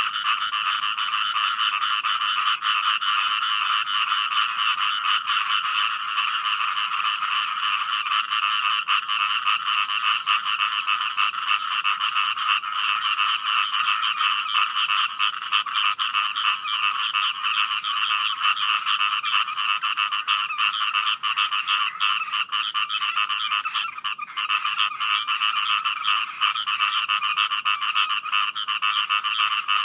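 Dense chorus of many frogs calling at once, a continuous overlapping croaking with two pitches, one higher and one lower, that never lets up.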